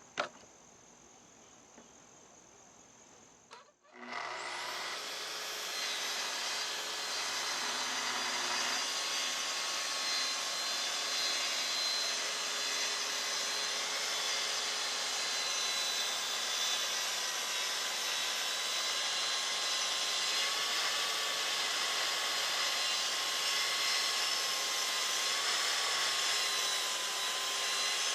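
Festool plunge-cut track saw starting up about four seconds in, after a click, then running steadily with a constant motor whine.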